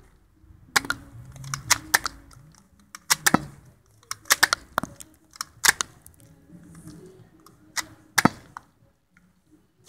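Sharp plastic clicks from a toy blaster being handled, about a dozen at irregular intervals, the loudest near the end.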